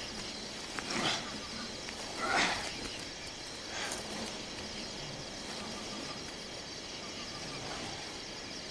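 Quiet outdoor nature ambience, with a steady high chirring like insects and a few short rustling swells about one, two and a half, and four seconds in.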